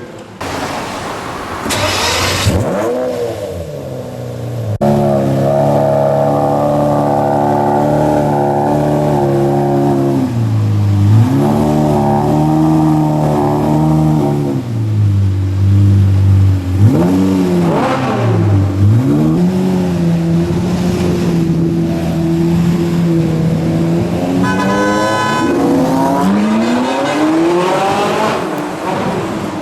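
A supercar engine idling and revved several times, its pitch sweeping up and falling back between steady idle stretches. A short high-pitched tone sounds briefly near the end.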